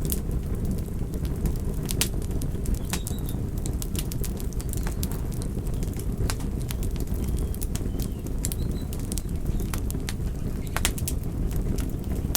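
Campfire burning: a steady low rumble of flames with frequent sharp crackles and pops scattered irregularly throughout.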